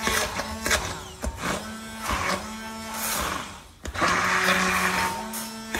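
Immersion hand blender running in a glass bowl, its blade churning thick ricotta and egg-yolk batter. The motor hum runs in stretches, cuts out briefly a little under four seconds in, then starts again.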